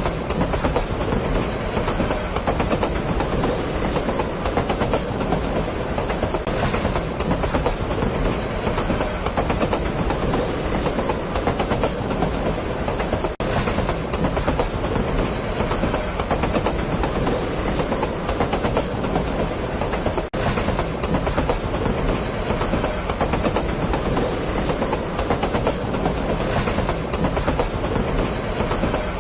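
Electric train running on the rails, a steady, even noise with no rise or fall, dipping briefly twice, about 13 and 20 seconds in.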